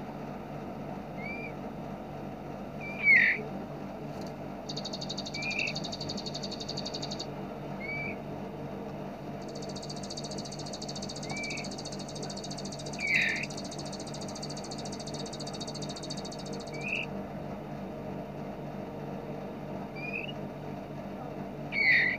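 Songbird calls from a bird-training recording. Short chirps come every second or two, three of them louder, and two long, very fast, buzzing trills run about five seconds in and again from about ten to seventeen seconds, all over a steady low hum.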